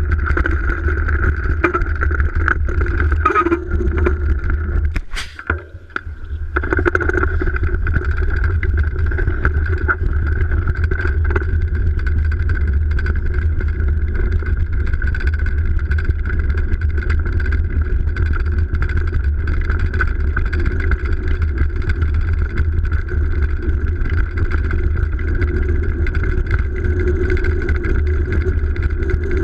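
Steady rumble of a downhill mountain bike rolling over snow, with tyre noise and frame vibration picked up through the bike-mounted camera, and scattered short knocks from bumps. The noise drops away briefly about five seconds in, then resumes.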